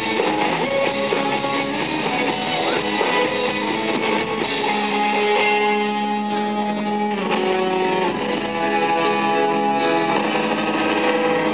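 Live rock band playing a guitar-led instrumental passage without vocals. The guitars are busy at first, then change about four and a half seconds in to longer held, ringing notes.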